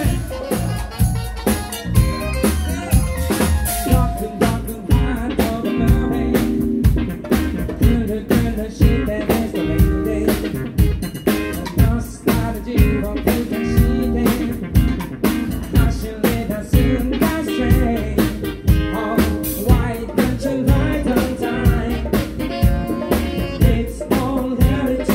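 Funk band playing live: drum kit, electric bass and electric guitar over a steady, even beat.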